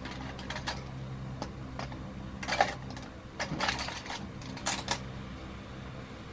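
A small plastic container being worked open by hand: a string of sharp plastic clicks and crackles, the loudest a little over two and a half seconds in, over a faint steady hum.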